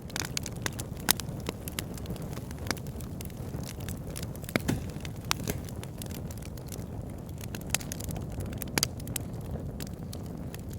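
Campfire burning: a steady low rumble of flames with irregular sharp crackles and pops of burning wood, a few of them louder.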